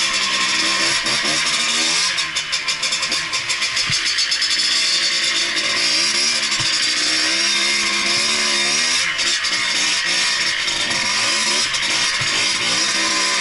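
Yamaha DT 50 MX's small two-stroke single-cylinder engine revving up and down repeatedly while riding, over a steady hiss.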